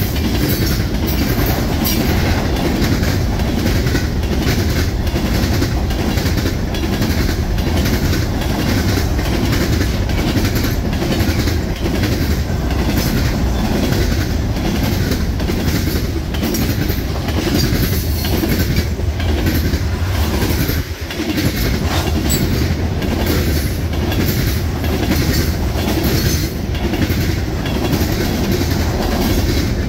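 Freight train cars (tank cars and covered hoppers) rolling past close by: a steady rumble of steel wheels on the rails with repeated clicking, and a brief dip in the noise about two-thirds of the way through.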